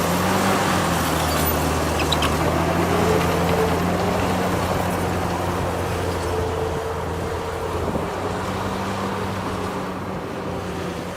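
Heavy diesel engine of earthmoving machinery running steadily, with a higher whine that comes and goes twice; the sound eases slightly toward the end.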